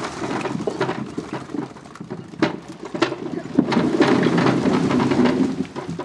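A cartload of freshly dug potatoes tumbling out of a tipped homemade tip-up cart onto a heap: a dense rumbling clatter of potatoes knocking on each other and on the cart bed. Two sharp knocks come near the middle, the clatter swells louder in the second half, and it dies away near the end.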